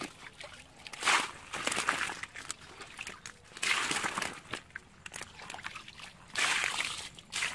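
Water sloshing and splashing as a metal bowl scoops and throws shallow pond water, three splashes a couple of seconds apart.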